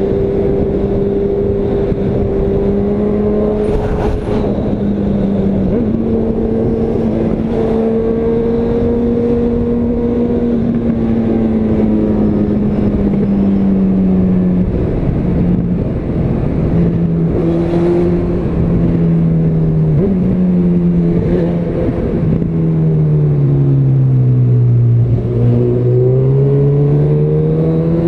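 Honda CB1000R's inline-four with a Yoshimura R-77 exhaust, heard from the bike while riding, over wind rush. The engine note holds steady, eases down through the middle, dips lowest a little before the end, then climbs again with the throttle.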